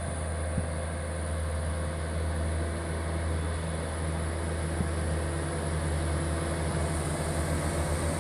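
Mitsubishi Canter light truck's diesel engine pulling up a hill climb: a steady low drone that grows a little louder and starts to throb near the end as the truck draws close.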